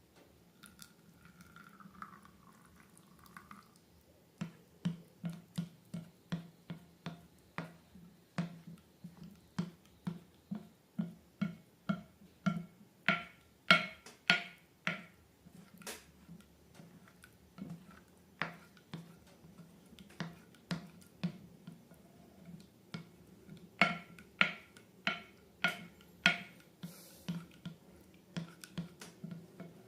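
Slime being pressed and worked by hand, giving a quick series of wet clicks and pops, about two a second, with a faint squeak near the start.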